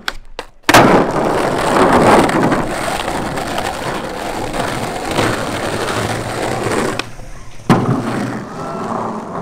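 Skateboard wheels rolling over hard ground. A couple of light clicks lead into a hard clack of the board under a skater's feet about a second in, and the loud rolling continues. A second sharp board clack comes near the end, followed by more rolling.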